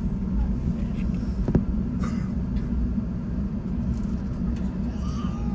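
Steady low rumble of an Airbus A380's cabin on the ground after touchdown: engine and rolling noise heard from inside the cabin, with a faint click about a second and a half in.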